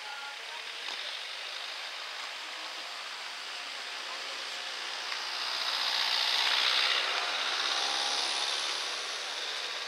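A small river's water rushing steadily, growing louder for a few seconds past the middle.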